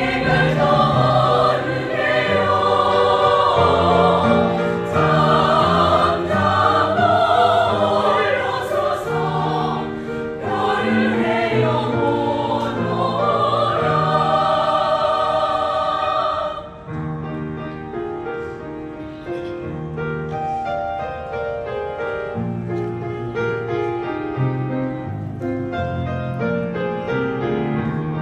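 A choir singing with instrumental accompaniment. The voices stop about sixteen seconds in and the accompaniment carries on alone, more quietly.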